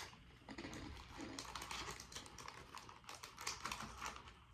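Faint, rapid, irregular crisp clicking and crackling from handling and eating a crunchy, cracker-like snack (bread-ball crackers).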